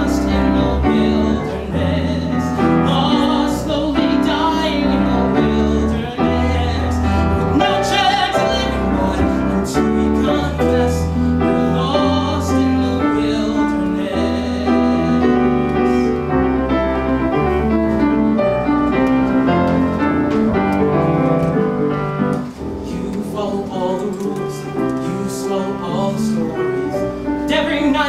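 A man singing a song solo, accompanied by piano.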